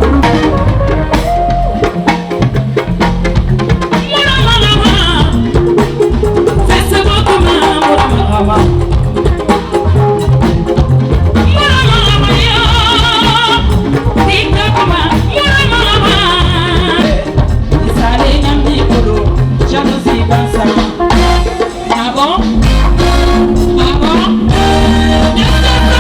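Upbeat dance music with a singer's voice over drums and heavy bass.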